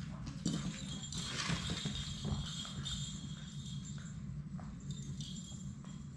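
Labrador retriever puppies moving about a pen with a wooden floor and blanket: faint scattered scuffs and taps over a steady low room hum.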